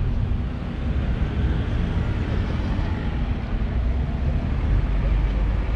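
Steady low rumble with a hiss over it: open-air background noise with no single clear event.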